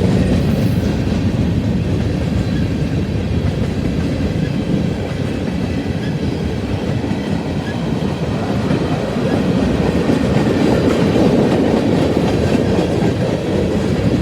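Freight cars of a manifest train rolling past: a loud, steady rumble of steel wheels on the rails.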